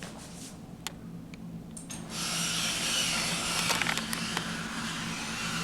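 Elevator car's steady low hum with a few sharp clicks; about two seconds in, a louder, even hiss sets in and holds.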